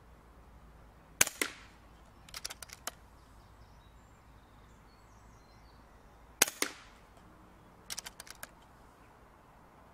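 A .22 FX Indy pre-charged air rifle, at 30 ft/lbs, fired twice about five seconds apart. Each sharp crack is followed closely by a smaller second crack. About a second after each shot comes a quick run of clicks as the side cocking lever is worked to chamber the next pellet.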